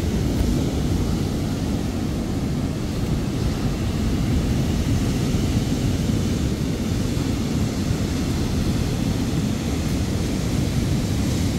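Steady wind rumbling on the microphone, over the continuous wash of heavy surf breaking on the beach.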